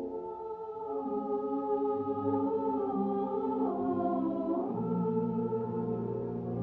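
Film score music: slow, held choral chords, with some voices sliding slowly between notes.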